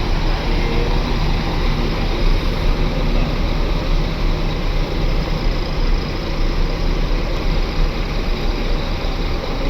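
A bus's diesel engine running steadily, a deep constant rumble with engine and road noise.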